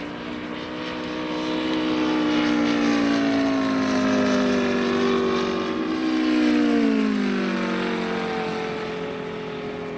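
Moki radial engine of a giant-scale radio-controlled P-47 Thunderbolt flying past: a steady droning note that grows louder, then drops in pitch about seven seconds in as the plane passes and moves away.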